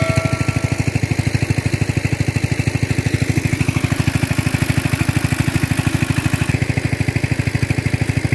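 Small engine running steadily with an even chug of about ten beats a second.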